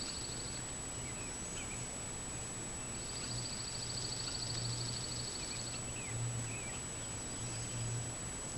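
A small bird's high, fast, even trill, ending just after the start and sung again for about three seconds midway, with a few faint chirps. Beneath it runs the trail camera's steady hiss and a thin, high electronic whine.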